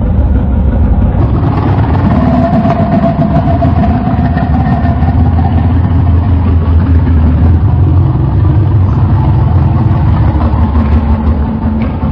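Designed sound effect of a Tyrannosaurus rex growl: one long, deep, steady growl lasting about fourteen seconds, cutting off abruptly.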